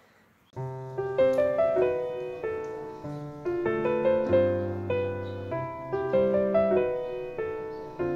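Gentle piano background music, coming in about half a second in with a steady run of notes that each ring and fade.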